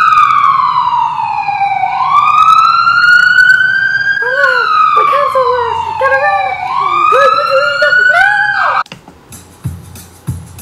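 A siren wailing, its pitch sliding slowly down and back up in cycles of about four seconds, with a second, lower wavering tone joining about halfway through. It cuts off abruptly near the end, leaving only a few faint clicks.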